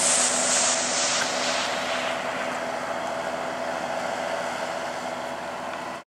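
Tractor engine running steadily under load while pulling a two-furrow plough through the soil, slowly fading and then cutting off suddenly near the end.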